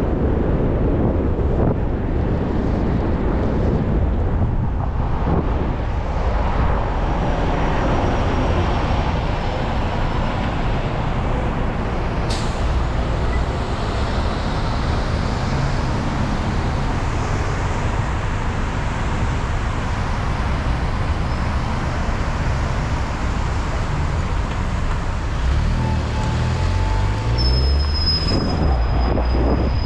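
Wind rushing over the microphone, with road and traffic noise, while riding on the road. A brief high tone sounds near the end.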